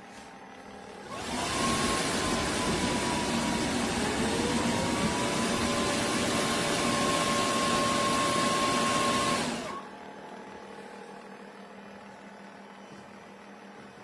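Roborock F25 LT wet-and-dry vacuum mop switching on about a second in, its motor whine rising and settling into a steady tone over the rushing airflow. A second, lower tone climbs a few seconds later. The machine cuts off after about eight and a half seconds of running.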